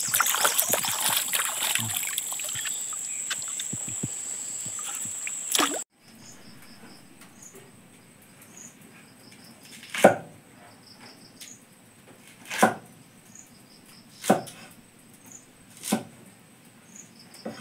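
Bamboo shoots being rinsed and rubbed by hand in stream water, splashing steadily. Then a cleaver chopping a bamboo shoot on a wooden board: about five single chops, each a sharp knock, roughly two seconds apart.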